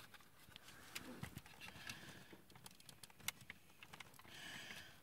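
Near silence with faint clicks and light knocks of hard plastic parts as a DX Great Sun Gard transforming robot toy is handled; one sharper click about three seconds in.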